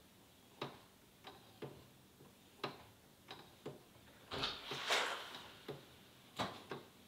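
Weight-driven wooden skeleton clock ticking, its escapement pallets knocking on the wooden escape wheel teeth in thumps about one or two a second. The clock is running steadily. A longer, louder scraping noise comes about four and a half seconds in.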